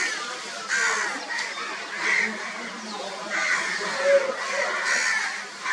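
Crows cawing, a string of harsh calls one after another.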